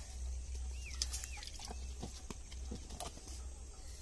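Faint scattered taps and rustles of fingers working spice paste through a plastic strainer into a steel pot of tamarind water, over a steady low rumble. Two short high chirps sound about a second in.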